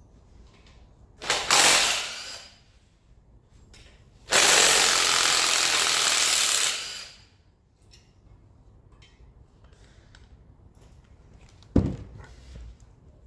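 Power tool undoing bolts during an engine strip-down: a short burst about a second in, then a steady run of nearly three seconds. A single sharp knock near the end.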